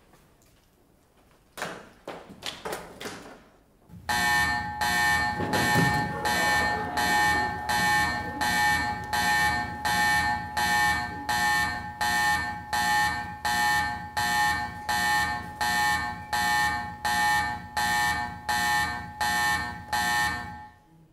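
A few clicks and knocks, then about four seconds in a loud electronic alarm starts: a buzzing tone that pulses about three times every two seconds. It stops abruptly shortly before the end.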